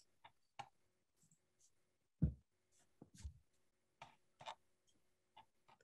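Faint handling noise at a computer desk: scattered small clicks from a mouse and desk, with two soft low knocks about a second apart a couple of seconds in.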